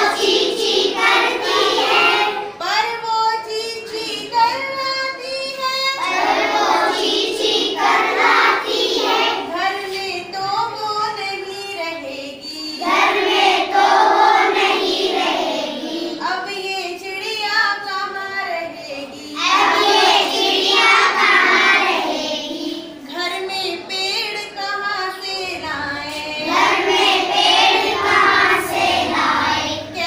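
A class of young children singing a Hindi children's poem together in unison, in sung phrases a few seconds long with brief breaks between them.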